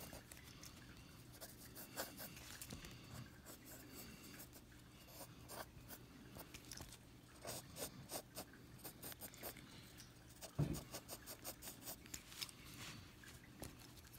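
Pencil scratching on paper in quick runs of short shading strokes, faint and rapid, with pauses between runs. A single dull thump about ten and a half seconds in.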